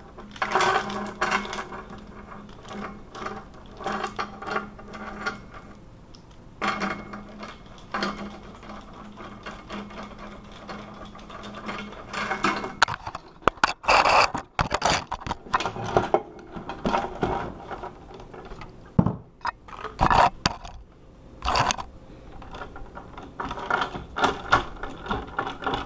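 Bolt cutters being worked on a hardened steel disc padlock: metal scraping and handling noise as the jaws are set and squeezed, then a run of sharp metal clacks and knocks in the middle stretch.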